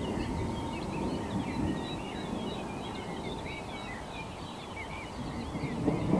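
Many small birds chirping and singing in quick, overlapping short notes over a low wind rumble. Near the end the low rumble swells as thunder begins to roll in.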